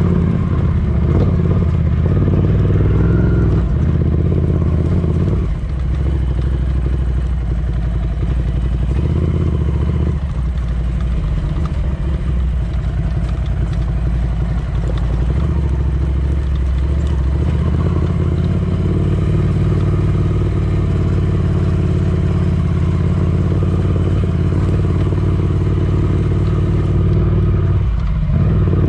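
Ducati Scrambler Desert Sled's air-cooled 803 cc L-twin running under way on the road. The engine note steps up and down in pitch several times as the revs change.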